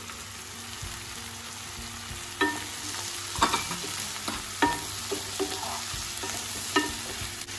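Boiled sweet corn stir-frying in a kadhai with butter, onion and tomato: steady sizzling, with several sharp clinks of the spatula against the pan as it is stirred.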